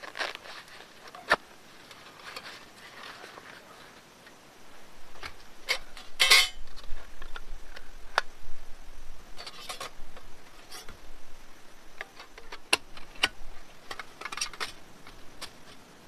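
Fabric pouch rustling and the thin metal panels of a folding wood-burning camp stove clicking and clinking as it is taken out and unfolded, with a louder rustle about six seconds in.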